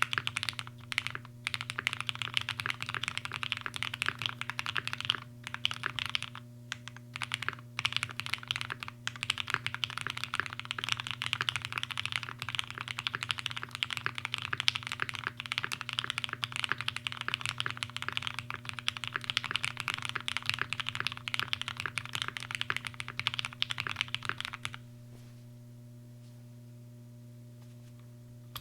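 Typing on a custom mechanical keyboard with lubed Cherry MX Black linear switches in an aluminum half plate, o-ring gasket-mounted with gaffer's tape under the PCB. The typing is fast and continuous, with a few brief pauses, and stops about 25 s in. A steady low hum runs underneath.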